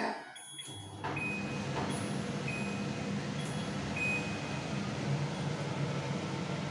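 Propello Stilez+ kitchen chimney's blower fan starting up about a second in and then running steadily with a low hum and rushing air. Its touch control panel beeps briefly three or four times as the speed is set.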